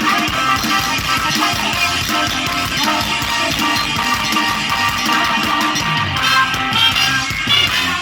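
Loud, steady Isan band music played live over a sound-truck system, a full band with no voice in the foreground.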